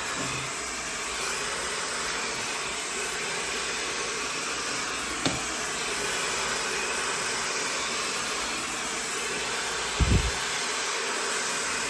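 GUGUG high-speed hair dryer running steadily, a constant rush of blown air, while hair is dried. A brief click about five seconds in and a low thump about ten seconds in.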